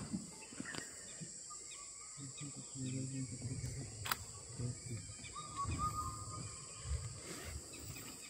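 A tiger lapping water, soft irregular wet laps and slurps, over a steady high drone of forest insects; a thin held whistle joins about two-thirds of the way in.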